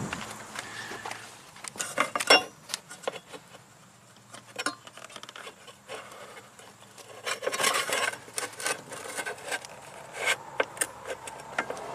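Hands rubbing and scraping at the fuel pump access opening under the rear floor carpet, with scattered small clicks as they work at the pump's stiff electrical connector to unplug it. Busiest in the second half.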